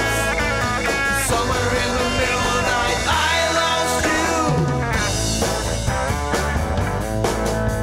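A two-piece rock band playing a 1960s psych-rock song: electric guitar over a Ludwig drum kit.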